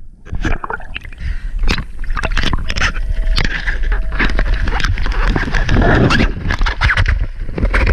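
Water splashing and sloshing at the sea surface, with many knocks and bumps against the camera housing, as a speared fish is hauled up beside a boat.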